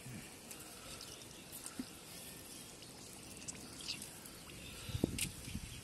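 Faint trickling and small splashes of shallow muddy water stirred by hands catching a fish, with scattered small clicks and a louder slosh about five seconds in.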